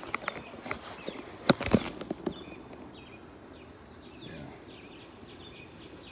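Handling noise from holding a caught bass and filming one-handed: a cluster of sharp knocks and rustles in the first two seconds or so, the loudest about a second and a half in. After that, faint short bird chirps repeat over the quiet background.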